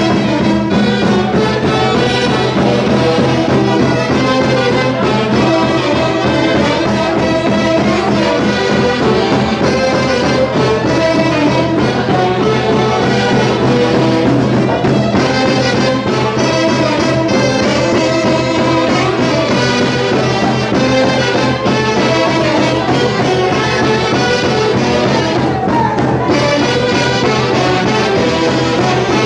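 Peruvian orquesta folclórica playing a Santiago tune from the central highlands, steady and loud, with no break.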